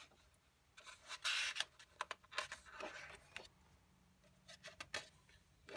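Pages of a thick-paper coloring book being turned by hand: faint paper rustles and swishes, louder about a second in and again around three seconds, with small taps between.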